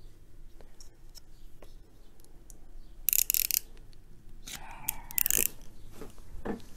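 Faint clicks of a plastic box cutter as its blade is slid in and out, with a couple of short hissing bursts about three and five seconds in.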